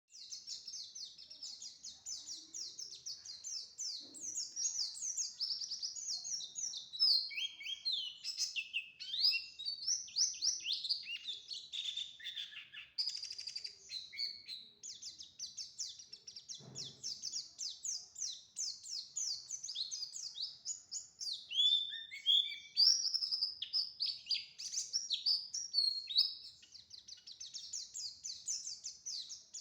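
A small songbird, the prenci kept by Indonesian bird-keepers, sings a long, nearly unbroken stream of rapid, high twittering notes. The title calls it 'ngriwik ngebren', a fast chattering song delivered without stopping. A faint low knock sounds once, a little past the middle.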